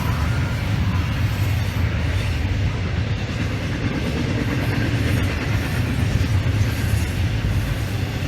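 Train passing with a steady low rumble and the noise of cars rolling along the rails.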